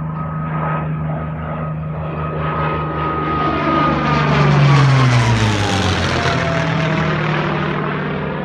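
Propeller-driven airplane flying past, its engine tone rising in level, loudest about five seconds in, then dropping in pitch as it passes and fading away.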